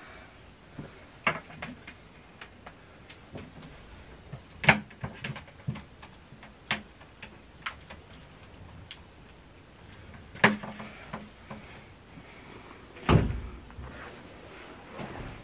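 Scattered clicks, knocks and bumps of someone handling things at a bedside table and moving about a small room, with a few sharper knocks and a heavier, duller thump near the end.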